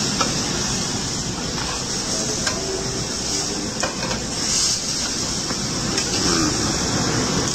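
Steady hissing of cubed meat searing in a stainless steel pan under a blowtorch flame, with a few light knocks of a spatula turning the meat.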